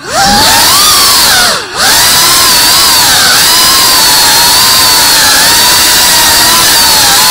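Tiny whoop FPV drone's small motors and propellers whining loudly, rising at the start, then the pitch wavering up and down with the throttle, with one short sharp dip a little under two seconds in.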